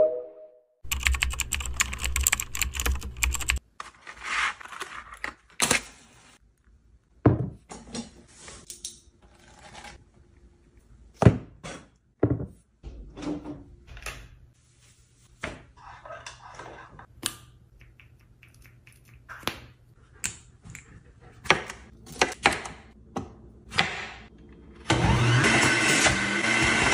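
Scattered light taps, clicks and knocks of small objects being handled and set down on hard surfaces, after a loud noisy stretch in the first few seconds. Near the end an electric centrifugal juicer starts up and runs loud and steady as produce is pressed down its chute.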